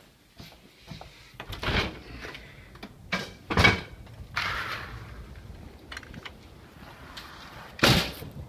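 A back door and a glass-louvered (jalousie) storm door being unlatched and pushed open: a string of handle clunks and rattles, with a loud knock about halfway through and another near the end.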